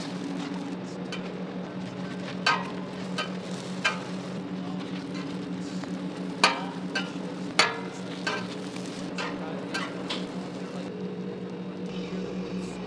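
Burger buns sizzling on a steel flat-top griddle, with a metal spatula clicking and scraping against the plate about eight times, loudest in the middle. A steady low hum runs underneath.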